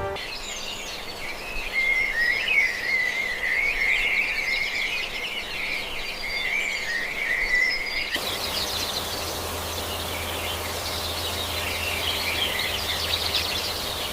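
Nature ambience of dense, high chirping from birds and insects. About eight seconds in it changes abruptly to a thicker chirping bed over a low steady hum.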